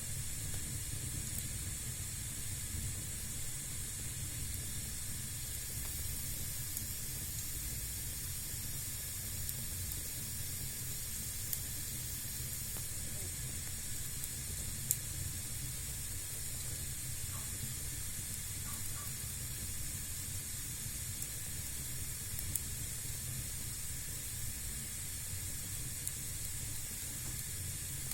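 Fire burning in a fireplace: a steady hiss and low rumble with a few sharp crackles.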